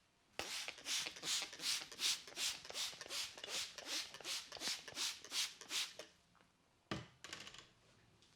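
Hands rubbing rhythmically over hair and scalp in a head massage, about fifteen quick strokes at nearly three a second, then a single sharp click near the end.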